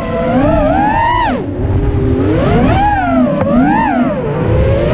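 FPV quadcopter's brushless motors and propellers whining, the pitch swooping up and down several times as the throttle is punched and cut. A rushing wind noise runs underneath.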